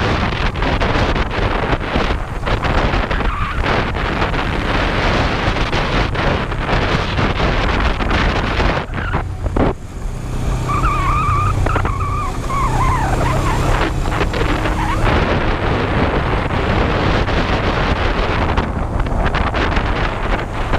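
Wind rushing over the microphone on a moving Kawasaki GPz250 belt-drive motorcycle, with its parallel-twin engine running underneath. About ten seconds in the wind noise drops for several seconds and the engine comes through more plainly, along with a faint wavering higher tone, before the wind rises again.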